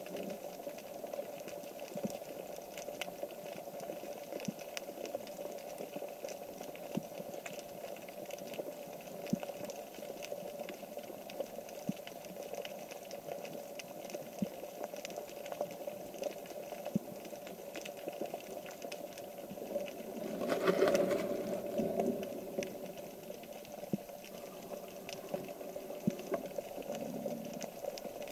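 Underwater ambience picked up through a camera's waterproof housing: a faint steady hum with many small scattered clicks and crackles, swelling briefly into a louder rush about twenty seconds in.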